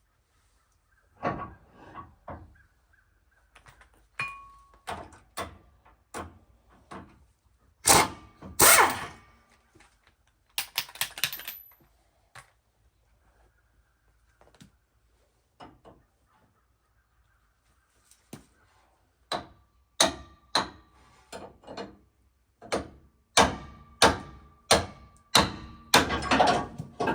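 Hammer blows on steel, a hammer driving a pickle fork to pop the tie rod ends of a steering linkage loose. The blows are scattered at first, with two loud ones about eight seconds in, then a steady run of strikes in the last eight seconds with a faint metallic ring.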